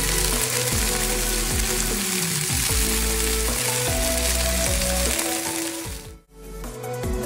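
Sausages sizzling in a frying pan, a dense crackling hiss of hot fat, over background music with deep sliding bass notes. The sizzle cuts off suddenly about six seconds in, leaving the music.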